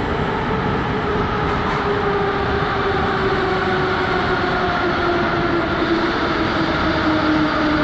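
Metro train running into the station: a steady rumble of wheels on rail, with an electric whine that slowly falls in pitch as it slows. It grows slightly louder toward the end.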